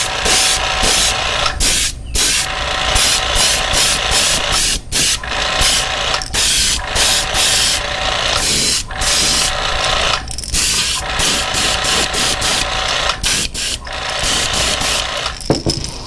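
Iwata Eclipse airbrush spraying paint onto a fishing lure: hissing air switched on and off in many short bursts by the trigger, with a thin whistle riding on the hiss.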